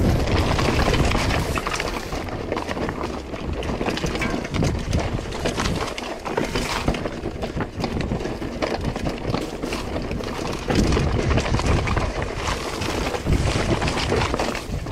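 Lapierre Zesty full-suspension mountain bike descending rocky singletrack: tyres crunching and skipping over loose stones, with a constant clatter of small knocks and rattles from the bike.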